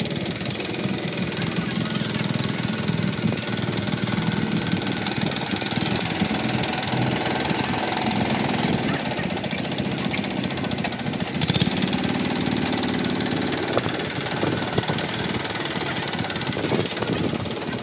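Single-cylinder diesel engine of a Kubota two-wheel walking tractor running steadily with a fast knocking beat, while the tractor works with its steel cage wheels and blade. A sharp clank stands out about two-thirds of the way in.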